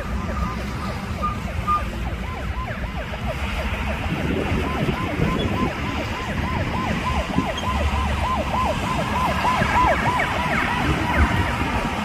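Heavy-equipment engine running steadily, with a fast run of short high chirps, about three or four a second, from a couple of seconds in until near the end.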